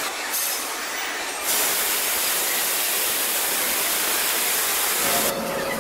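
Ornamental fountain's water jets splashing into the basin, a steady hiss that starts abruptly about a second and a half in and cuts off shortly before the end.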